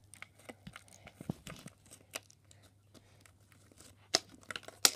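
Slime being pressed and spread flat with fingers on a tray, making small sticky clicks and crackles, with two louder snaps, one about four seconds in and one just before the end.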